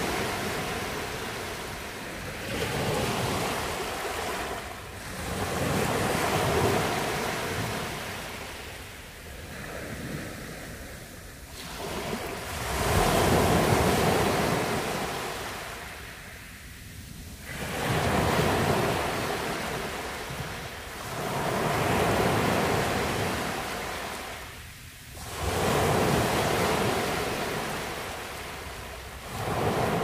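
Small sea waves breaking and washing up a sandy beach, the surf swelling and fading every three to five seconds.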